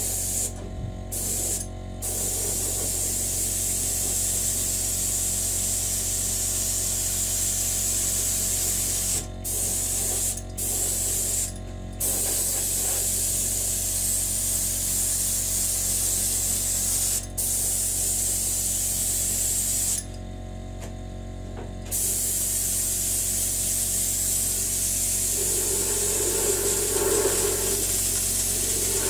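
Gravity-feed air spray gun, fed by a compressed-air hose, spraying paint with a steady hiss. The hiss stops briefly several times and once for about two seconds.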